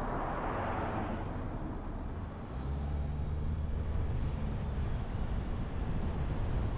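A passing car's tyre whoosh that peaks in the first second and fades, followed by a steady low rumble.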